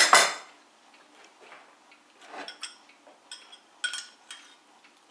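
A metal spoon clinks against a ceramic bowl several times in the second half while someone eats, each clink short and ringing. Right at the start there is a short, loud noise.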